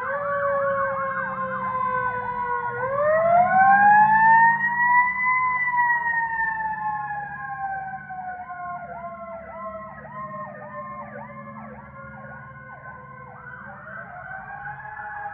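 Sirens from a fire truck and police cars in a slow-moving parade. One siren wails, rising steeply a few seconds in and then falling slowly before climbing again near the end, while another runs a fast repeated yelp over it, with a low engine rumble underneath. Loudest about four seconds in.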